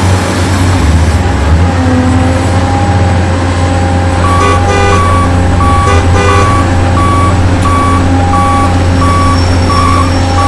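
Electronic sound effects from a remote-control toy construction vehicle: a steady engine hum with a reversing beeper that starts about four seconds in and beeps about twice a second.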